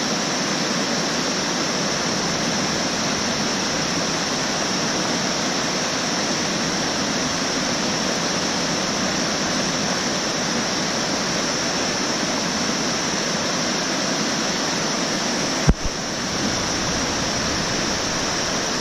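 Rushing water of a rocky mountain river running over rapids, a loud, steady roar. One short thump about three-quarters of the way through.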